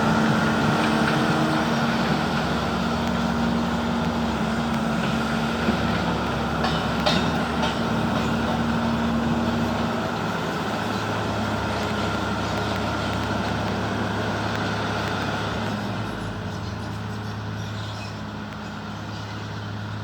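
Kobelco SK170LC-10 excavator's diesel engine running steadily. Its note drops to a lower, steadier hum about halfway through, with a few light knocks shortly before, and the sound fades slightly near the end.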